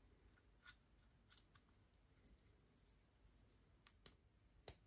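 Faint, scattered small clicks and scrapes of a red dot sight and a CR2032 coin battery being handled while the battery is fitted, the loudest click near the end.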